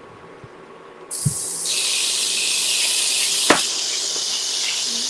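Chopped bacon and garlic sizzling in a hot stainless-steel electric skillet, a steady loud hiss that starts suddenly about a second in as the meat goes in. There is a single sharp click past the middle.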